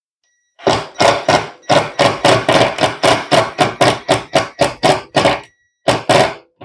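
A fast, even series of sharp knocks, about three a second, kept up for about five seconds with a short break near the end.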